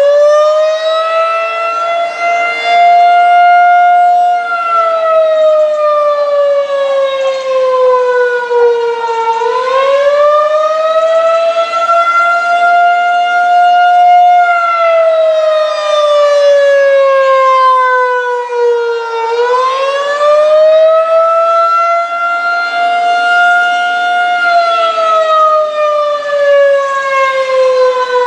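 Federal Signal 2001-SRN electromechanical outdoor warning siren sounding the Attack signal, a wail. Its pitch climbs over about four seconds, holds briefly, then sinks over about five seconds. The cycle repeats three times, about every ten seconds.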